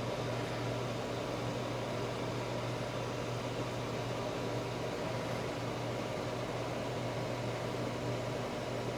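KOTTO solder fume extractor's fan running steadily, a low hum under an even rush of air, pulling soldering smoke into its filter.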